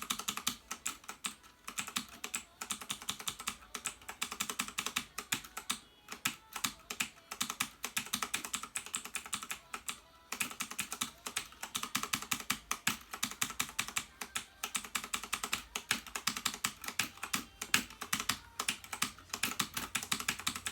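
Clicky blue-switch mechanical keyboard keys being tapped rapidly and continuously, many sharp clicks a second.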